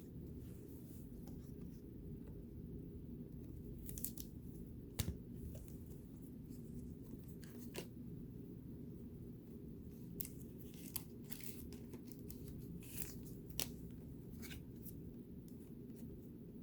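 Trading cards being handled and slid one over another, making scattered short clicks and swishes over a steady low hum.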